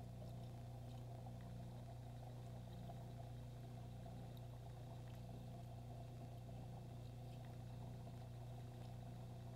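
Steady low electric hum of aquarium equipment, a filter or air pump, with a few faint ticks.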